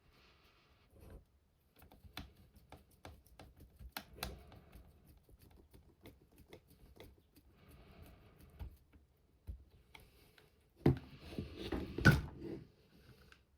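Small clicks and handling noise of hard plastic RC car parts and a screwdriver as a self-tapping screw is driven in from underneath to fix the steering upright, with a louder clatter of parts near the end.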